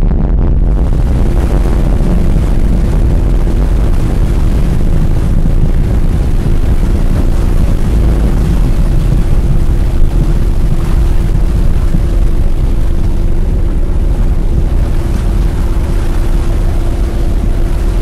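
Loud, steady low rumbling drone, like engine or wind noise, with a faint held tone coming in about a second in.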